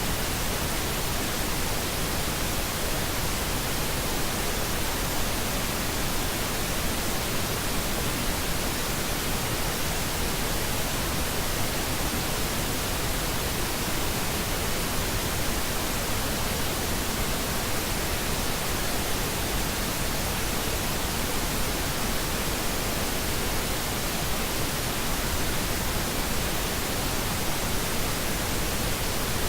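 Steady pink noise: an even, unbroken hiss across the whole range, with no change in level.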